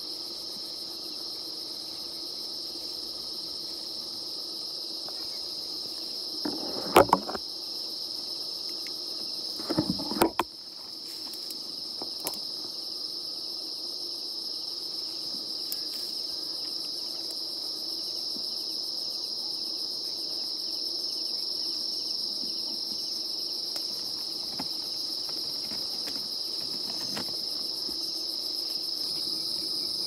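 Chorus of night insects such as crickets, trilling steadily at a high pitch over a lower steady hum. Twice, about a third of the way in, short bursts of close rustling and knocking stand out as the loudest sounds.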